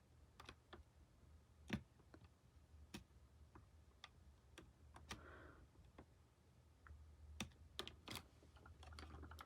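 Soldering iron tip working the plastic of a toy figure, melting it down: faint scattered small clicks and ticks, with a brief soft hiss about five seconds in.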